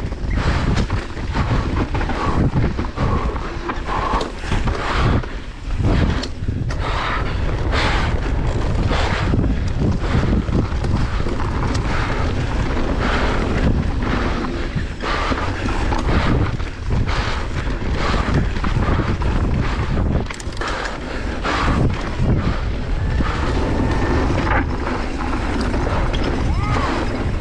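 Wind buffeting the microphone of a mountain biker riding downhill, a steady loud rumble with the tyres on dirt and frequent knocks and rattles of the bike over rough ground.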